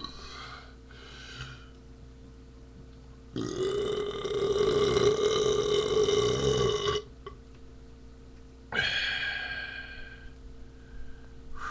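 A man's long, drawn-out beer burp, held at a steady pitch for about three and a half seconds, then a shorter second burp that fades out near the end.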